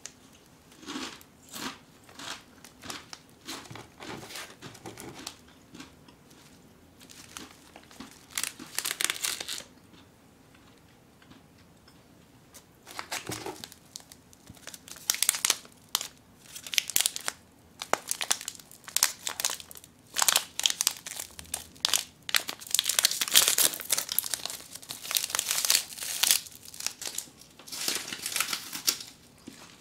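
Plastic snack wrappers crinkling as hands pick up and shuffle packets of snacks, in irregular bursts with a short lull about a third of the way in and busier handling in the second half.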